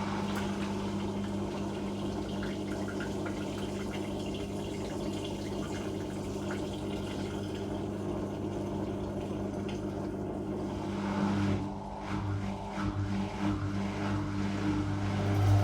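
Whirlpool Indiana 1400 front-loading washing machine running mid-cycle: a steady low hum with water rushing through it. About twelve seconds in, the sound dips briefly, then carries on unevenly.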